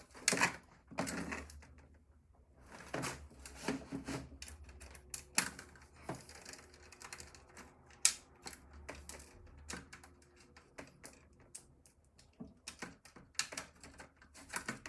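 Irregular clicks, taps and light rattles of small plastic and metal computer parts being handled and pried apart during disassembly, with a sharp click about eight seconds in.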